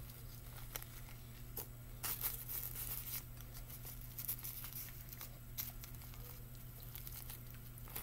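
Nori seaweed sheet crinkling and crackling under the fingers as a sushi roll is pressed and rolled by hand. The soft rustles are scattered and busiest about two to three seconds in, over a low steady hum.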